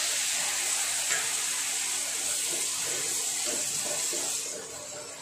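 Milk hitting a hot pan of ghee-fried onions and spices, sizzling with a steady hiss that dies down about four and a half seconds in as a wooden spatula stirs it.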